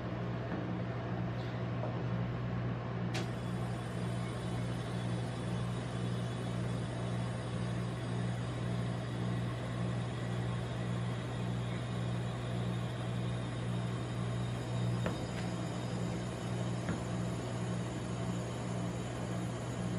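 Steady low hum of a rolled-ice-cream machine's refrigerated cold plate running, with a few faint light clicks.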